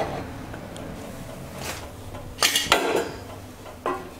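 Kitchen utensils knocking against cookware: a quick cluster of sharp clinks and knocks about two and a half seconds in, then one more knock near the end, as a wooden spatula is brought to the cast-iron Dutch oven.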